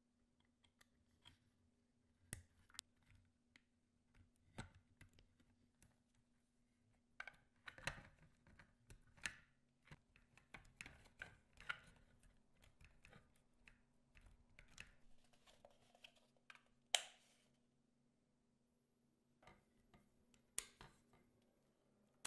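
Quiet, irregular clicks and taps of hands handling small parts, the sharpest about three-quarters of the way in, over a faint steady hum.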